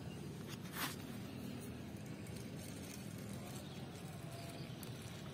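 Outdoor background: a steady low rumble, with one brief rustle about a second in.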